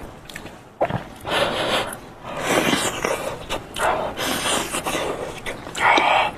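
Close-miked eating sounds: biting and chewing soft, hot braised meat, with about four noisy breaths in and out through the mouth to cool the hot bite.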